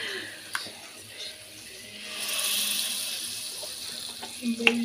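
Hot oil sizzling and bubbling in a large steel pot, the hiss swelling about two seconds in and then slowly easing off.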